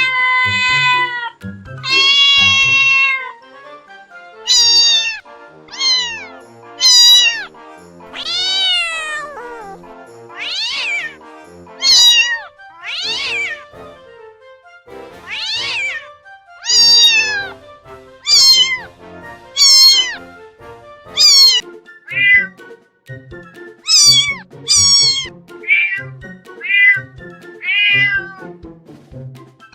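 Domestic cat meowing over and over, about twenty separate meows: the first two long and level, the rest shorter, rising and falling calls, over soft background music.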